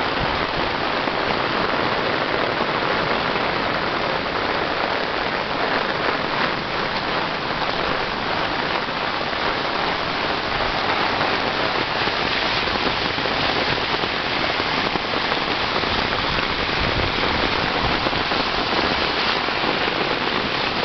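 Heavy rain pouring down in a steady, dense hiss, mixed with floodwater rushing across a flooded road faster than the storm drains can take it.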